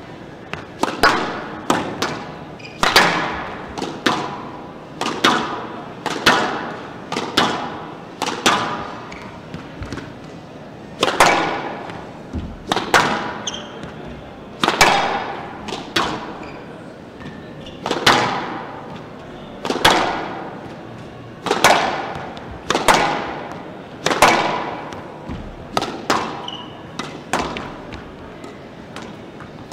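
Squash ball being struck back and forth with racquets and hitting the front wall during a warm-up rally on a glass court: sharp, echoing cracks about every second, some in quick pairs.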